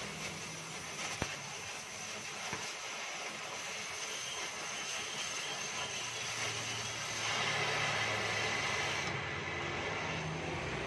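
Gas welding torch flame hissing steadily while an exhaust pipe is welded, with a single sharp click about a second in and a low hum joining about six seconds in.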